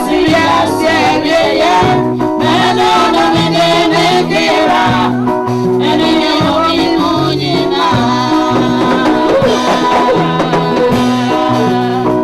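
Gospel music: singing voices over a band, with a bass line moving in steady held notes.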